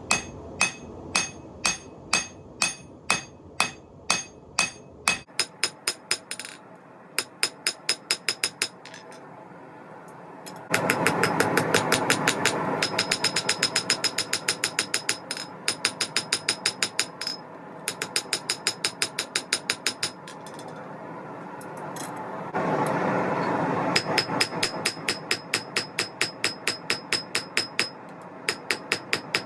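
Hand forging: a hammer striking hot 8670 steel on an anvil in a steady rhythm, each blow with a bright metallic ring. The blows come about two a second at first, then quicken to three or four a second, with a steady rushing noise behind them for long stretches.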